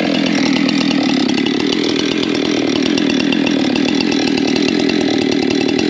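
Wood-Mizer LT35 portable band sawmill running under load, its band blade cutting through a log with a steady, loud drone.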